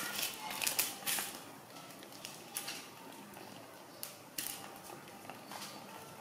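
Irregular light taps and scuffs as a baby monkey handles small plastic balls and pats the tiled paving. They come in a quick cluster over the first second or so, then as a few scattered taps.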